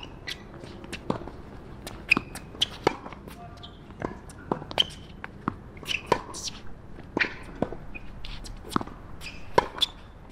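Tennis balls bounced and struck on hard courts: irregular sharp pops and taps, some with a short ringing ping.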